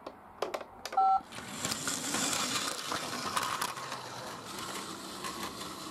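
A few clicks and a brief tone about a second in, then the steady whir of a battery-powered Plarail toy train's motor and gears as it runs along plastic track.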